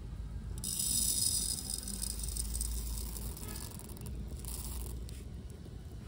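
Dry red lentils poured from a small clay bowl into a miniature clay pot, rattling against the clay and each other. The pour starts about half a second in and tails off, with one more short trickle about four and a half seconds in.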